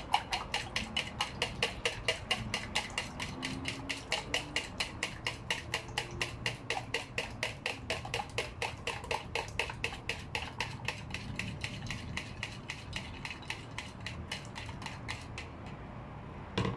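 Three raw eggs being beaten briskly in a bowl with a metal spoon: quick, even clicks of the spoon against the bowl, about five a second, stopping near the end.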